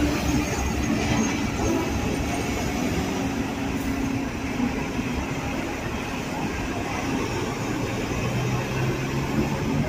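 Hong Kong double-decker tram running along its street tracks, heard from on board: a steady rolling rumble of wheels on rail with a low hum underneath.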